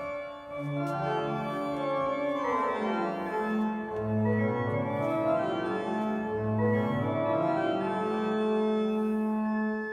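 Church organ playing held chords over low bass notes, with runs of notes sweeping down and then back up through the middle.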